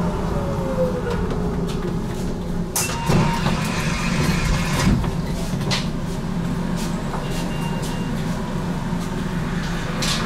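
GTL8 tram heard from on board while running: a steady rumble of wheels on rail and running gear, a whine falling in pitch in the first second or so, and several sharp clicks and knocks from the track.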